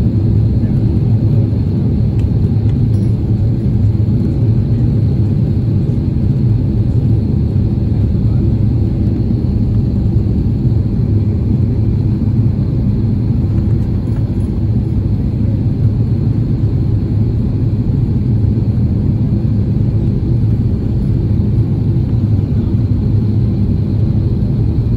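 Steady low cabin rumble of an Airbus A330-300 in descent: engine and airflow noise heard from inside the cabin at a window seat over the wing.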